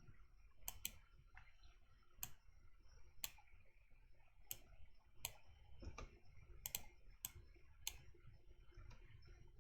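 Scattered computer mouse and keyboard clicks, about ten sharp ones at irregular intervals with a couple of quick double clicks, over a faint low hum.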